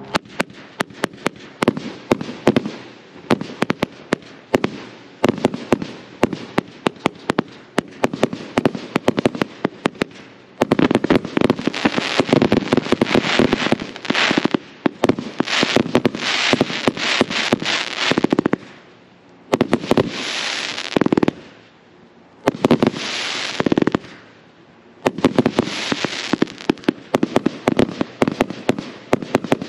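A 114-shot firework cake firing: rapid sharp bangs, several a second, with repeated stretches of dense, loud noise between short lulls.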